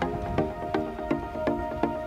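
Background music with a steady percussive beat of about three strikes a second under sustained melodic notes.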